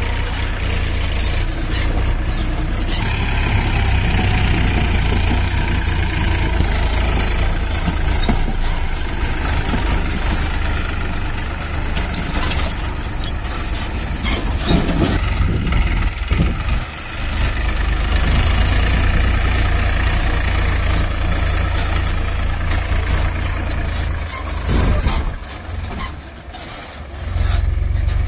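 Diesel engine of a JCB 3DX backhoe loader running steadily while it digs and loads mud. Its level dips briefly about two-thirds of the way through and again near the end.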